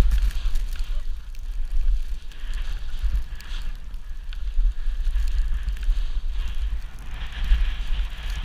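Wind buffeting an action camera's microphone during a downhill ski run, with the skis' edges scraping and hissing over firm, slick snow, swelling through the turns.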